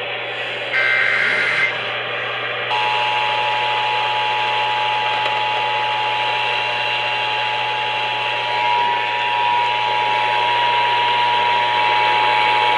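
Emergency Alert System activation heard over a radio. The last warbling SAME data burst of the header plays, and after a short pause the steady two-tone EAS attention signal comes on about three seconds in, over radio hiss.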